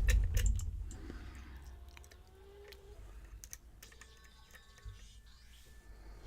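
Scattered light clicks and scrapes of a lock pick and tension wrench working the pins inside a challenge lock, with a few louder handling bumps near the start.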